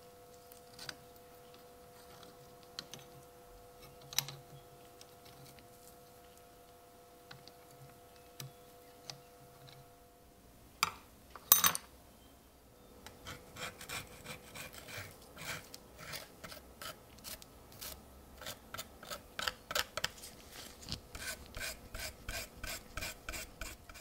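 A few light clicks of handling, then a couple of sharp clacks about halfway through, followed by repeated scraping strokes, about two or three a second, as crusted rust and debris are scraped off the steel liner of an old pocket knife.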